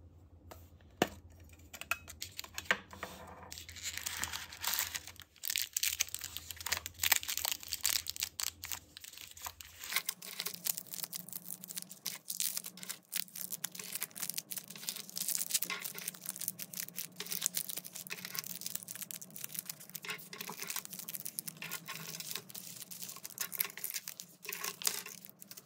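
Crinkling and rustling of individually wrapped caramels in plastic wrappers as they are lifted out of a small metal tin and set down on a table, with small taps and clicks throughout and one sharp click about a second in.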